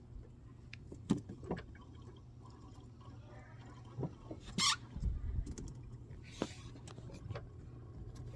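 Smoke-test machine humming steadily while checking an engine for vacuum leaks, with scattered clicks and knocks and a short hiss about four and a half seconds in.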